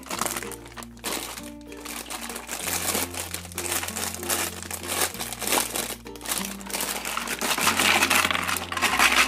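A clear plastic bag of small plastic toy pieces crinkling and rustling as it is handled, louder in the last couple of seconds, over light background music.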